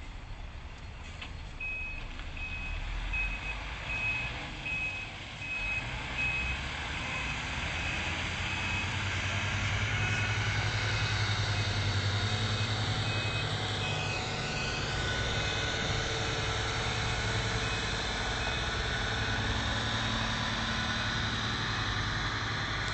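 Mercedes-Benz Actros concrete pump truck with its diesel engine running and its reversing alarm beeping steadily, about one beep every three-quarters of a second. The engine grows louder about a third of the way in as the truck reverses.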